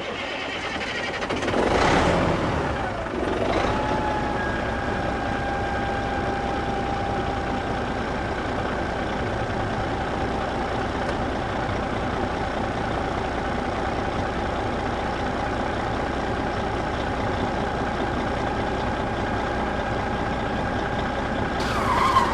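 A small motor runs steadily, its whine settling to a constant pitch about four seconds in and holding steady after that.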